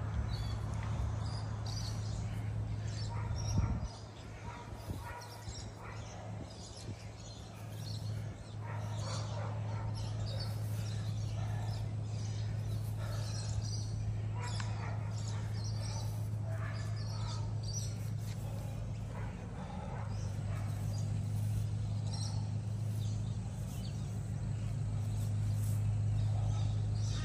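Birds chirping on and off over a steady low hum. A single thump comes a few seconds in, after which the hum drops away for a few seconds before returning.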